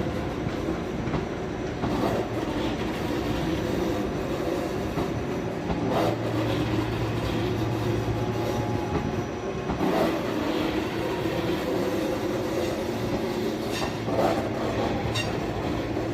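A train rolling through the station with a steady running noise, its wheels knocking over the rail joints about every four seconds.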